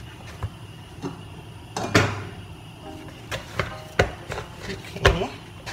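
Dough being kneaded and pressed by hand in a plastic bowl: irregular soft knocks and thumps, the loudest about two, four and five seconds in.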